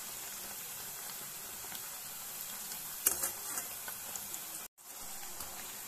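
Rice-flour chekkalu deep-frying in hot oil in a steel kadai, sizzling steadily, with a few light clicks of a steel spatula against the pan about three seconds in. The sizzle cuts out for an instant just before five seconds in.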